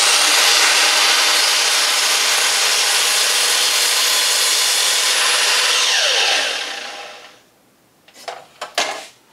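Makita sliding mitre saw with an 80-tooth blade running at full speed and crosscutting a wooden backer board. A little after six seconds in, the trigger is released and the blade spins down with a falling whine. A few light knocks follow near the end.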